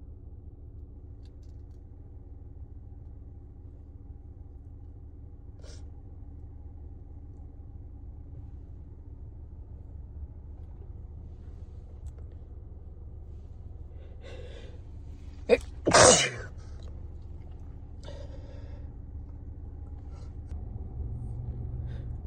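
A person with a cold sneezes once, loudly, about three-quarters of the way through, after a drawn-in breath and a short catch, and breathes out weakly a moment later. A steady low hum runs underneath.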